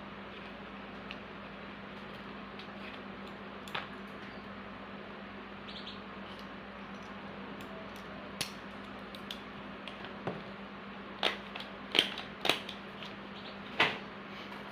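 Scattered sharp clicks and taps of small hard items being handled during packing, over a steady low electrical hum. The taps come closer together and louder in the last few seconds.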